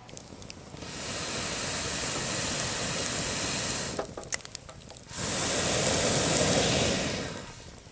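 Two long puffs of air blown through a fire-blowing pipe into a wood fire, each about three seconds, with the fire crackling between them. The blowing is to rouse firewood that is slow to catch.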